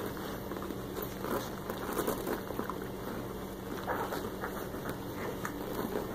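Six-day-old English Mastiff puppies suckling and squirming against their nursing mother while she noses and licks them: a run of soft, irregular wet smacking and clicking sounds over a steady low hum.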